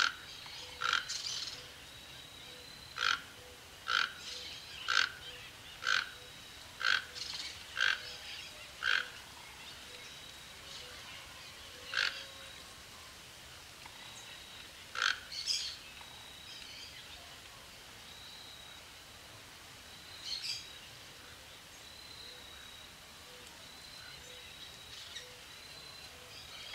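Toco toucan calling: a run of short croaking calls about once a second, then a few more spaced several seconds apart, the last one fainter.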